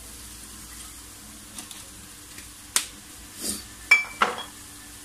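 A metal spoon clinking and scraping against a metal wok of broth: three sharp clinks and a couple of short scrapes in the second half, over a steady low hum.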